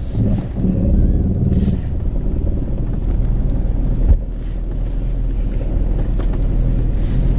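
Car engine running, heard from inside the cabin as a steady low rumble while the car is manoeuvred slowly, with a single sharp click about four seconds in.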